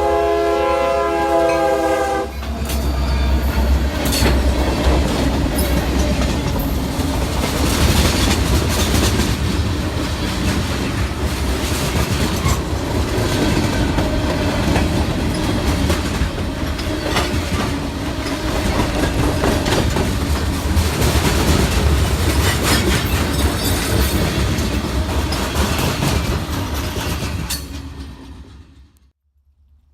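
Train horn sounding a chord that stops about two seconds in, followed by a train passing close by with a heavy rumble and the clickety-clack of wheels over rail joints. The sound cuts off sharply near the end.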